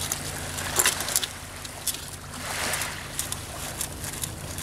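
A dog chewing and licking at an aluminium beer can: irregular sharp crinkling clicks of teeth on the thin metal, over a steady low hum.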